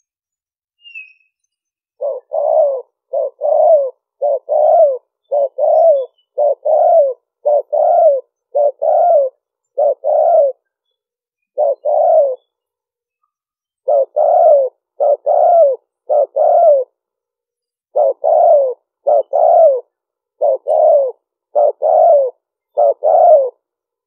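Spotted dove cooing: a long series of low coos in quick pairs, with a few short pauses, starting about two seconds in.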